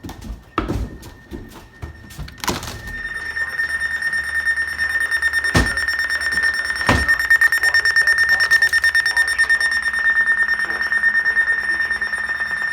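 Emergency Alert System attention tone: one steady, high-pitched alarm tone that begins about two and a half seconds in and holds for about ten seconds, with a couple of sharp clicks over it. Before it comes a short stretch of scattered clicks.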